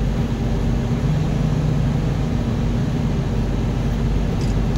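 Semi-truck's diesel engine running at low speed, a steady low drone with road and cab noise, heard from inside the cab as the truck rolls slowly.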